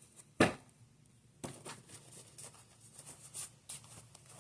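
Tarot cards being handled: one sharp snap or tap about half a second in, then soft rustling and light clicks of cards being moved.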